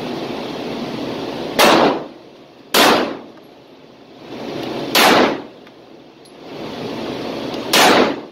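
Four single 9mm pistol shots from an Arex Rex Alpha, fired at an uneven pace with one to three seconds between them, each a sharp crack that rings briefly off the concrete walls of an indoor range.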